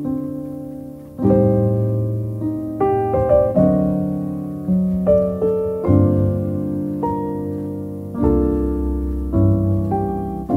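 Background piano music: slow, gentle chords and single notes, each struck and left to fade before the next.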